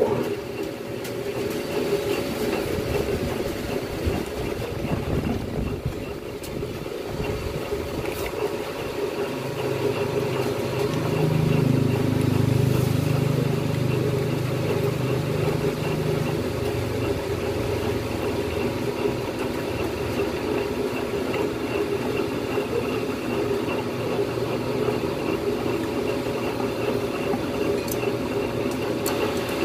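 Steady hum of a running electric machine in a workshop, with a deeper hum swelling through the middle. A sharp knock sounds right at the start.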